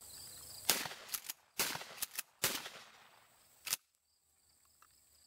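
Pump-action 12-gauge shotgun fired several times in quick succession, the slide racked between shots to eject the spent shells; the shots and clacks come within about the first four seconds.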